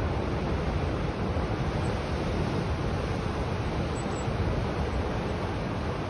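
Rough sea surf breaking constantly, a steady dense rush of waves with no separate crashes standing out.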